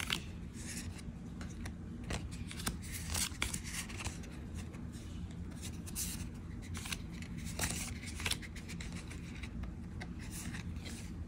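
Magic: The Gathering trading cards being slid one at a time from the front to the back of a hand-held stack: irregular soft swishes and small flicks of card stock rubbing on card stock, over a steady low hum.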